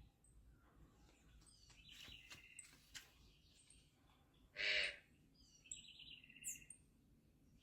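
Several birds calling: scattered high chirps and short trills, with one loud, harsh call about two-thirds of the way in and a quick falling whistle shortly after.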